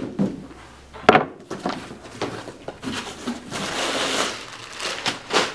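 Cardboard box being opened by hand: sharp snaps and knocks as the flaps are pulled back, about a second in and near the end, with a longer rustle of cardboard and packing about four seconds in.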